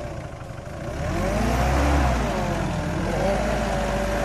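Mitsubishi Pajero Sport's engine revving up hard about a second in, falling back and rising again, with a broad rushing noise over it. The 4x4 is cross-axled with a wheel hanging in the air and has no centre diff lock, so the revs go to the unloaded wheel while it struggles to reverse out.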